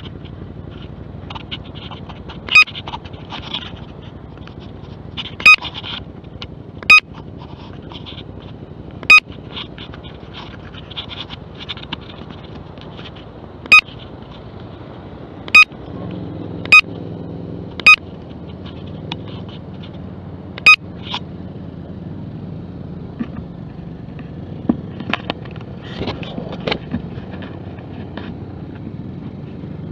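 A steady low rumble broken by about ten sharp, loud clicks, each with a short ringing tone, at irregular intervals a second to a few seconds apart; the rumble grows heavier about halfway through.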